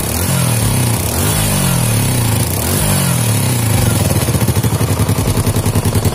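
Small four-stroke motorcycle engine revved up and down a few times, then settling to a steady idle near the end. It runs without the earlier rough rattle now that its worn rocker arm has been replaced, though the mechanic points to a leak at the exhaust port that makes it pop when revved.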